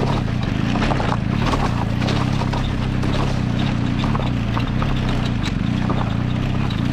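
BMW GS boxer-twin engine running at low, steady revs while the bike rides over loose, coarse rock and gravel, with a dense stream of clicks and knocks from stones crunching and kicked up under the tyres.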